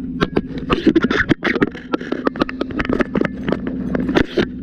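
A steady engine drone from a running fire engine, with many sharp, irregular cracks and clicks over it, several a second.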